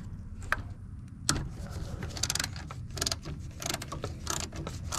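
Hand ratchet clicking in short runs while backing out the small screws that hold an ABS control module. The clicks come in quick bursts roughly every half second to second.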